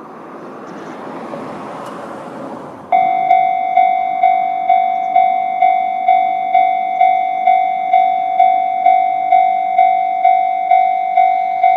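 Japanese railway level-crossing electronic warning bell in the JR East (Tohoku) tone, starting about three seconds in and striking steadily about twice a second, each strike ringing and decaying. Before it starts there is a rising and fading rush of noise.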